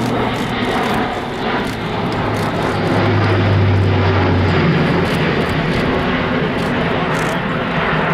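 Airbus A400M's four TP400 turboprop engines and eight-bladed propellers, a loud steady propeller drone with a low hum. It is loudest as the aircraft passes overhead about halfway through, where the hum shifts in pitch.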